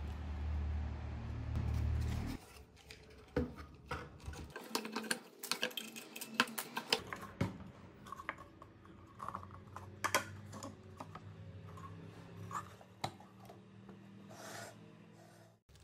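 An 895 DC motor spinning a sanding disc runs with a low hum for about two seconds and stops suddenly. After that come scattered light knocks, taps and clicks of a small plywood box being handled and set down on a cutting mat.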